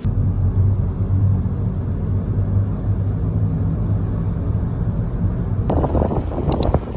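Steady low rumble of a vehicle driving. About five and a half seconds in it turns rougher, with a few sharp clicks.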